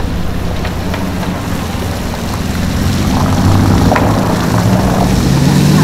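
Bugatti Chiron Super Sport's quad-turbo W16 engine running as the car drives slowly past, getting louder about halfway through, with the engine note rising in pitch near the end as it accelerates away.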